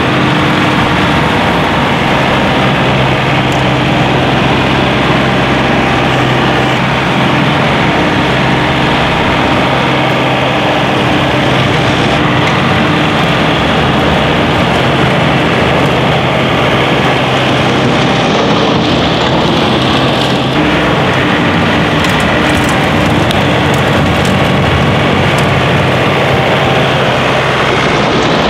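John Deere 3046R tractor's diesel engine running steadily, driving a front-mounted PTO snowblower that is throwing snow, with a steady rushing noise over the engine's even low note.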